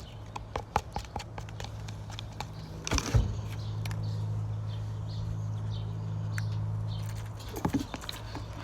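Homemade slime being stirred with a stick in a container, giving scattered light taps and sticky clicks. A steady low hum swells between a sharp knock about three seconds in and another near the end.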